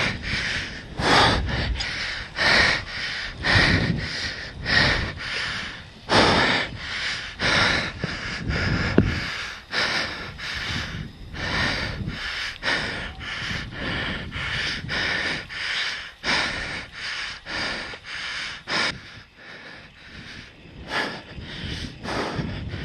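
Mountain biker breathing hard from the effort of riding, quick heavy breaths about two a second, close to the microphone.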